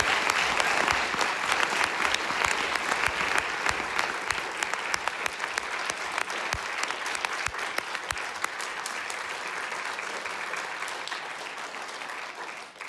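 Audience applauding at the end of a talk, a dense patter of many hands clapping that slowly thins and fades toward the end.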